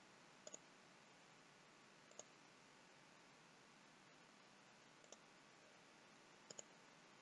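Faint computer mouse clicks against near silence: a double click about half a second in, single clicks around two and five seconds in, and another double click near the end.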